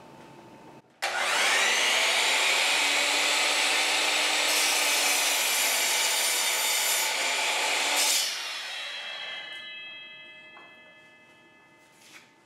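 Bosch CM10GD 10-inch miter saw switched on about a second in, its motor spinning up with a rising whine and running loud and steady while the blade cuts a 30-degree miter through a wooden board. About eight seconds in the trigger is released and the blade runs down, fading out over several seconds.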